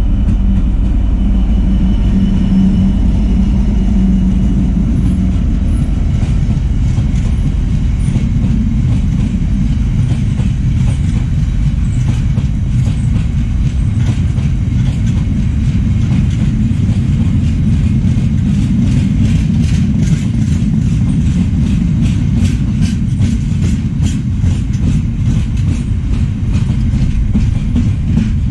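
A GB Railfreight Class 66 diesel locomotive's two-stroke V12 engine drones as it passes close by for the first few seconds. Then a long rake of open box wagons rumbles past, its wheels clattering rapidly over the track, most strongly in the second half.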